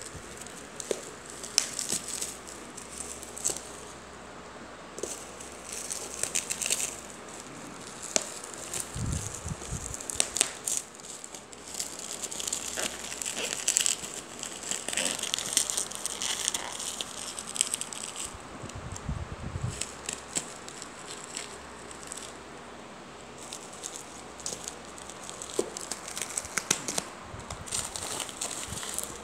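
Bubble wrap and plastic packaging crinkling and crackling as packed items are handled and unwrapped, in irregular bursts that are densest in the middle, with a couple of low thumps from handling.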